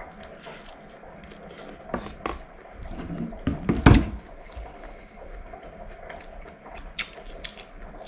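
Spoon clicking and scraping against food containers while eating, in a series of small, scattered clicks, with one louder dull thump about four seconds in.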